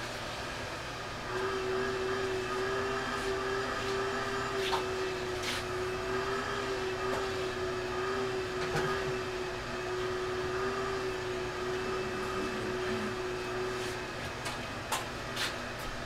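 A small electric motor running with a steady hum, starting about a second in and stopping near the end, with a few light clicks.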